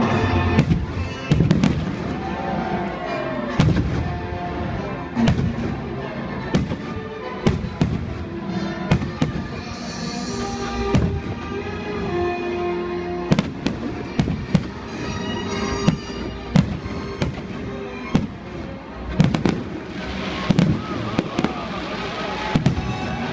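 Fireworks bursting in rapid, irregular succession, many sharp bangs a second or so apart, over music playing through the stadium's loudspeakers.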